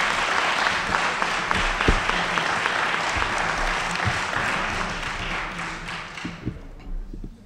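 Audience applauding, a dense patter of many hands clapping that dies away over the last second or two.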